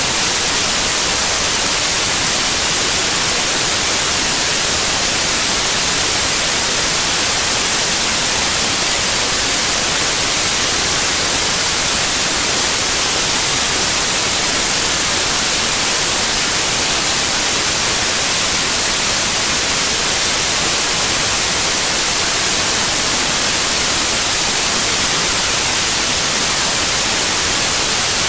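Steady static hiss, even and unchanging throughout, strongest in the high frequencies, with no other sound standing out.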